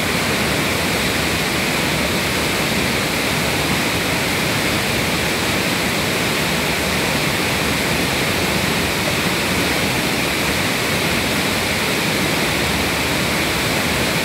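Waterfall and river rapids pouring steadily: an even, unbroken rush of falling water.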